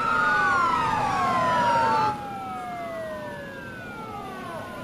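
Several emergency-vehicle sirens wailing at once, their pitches sliding up and down out of step with one another. The sound is loud at first and drops suddenly about two seconds in, as the sirens carry on more quietly.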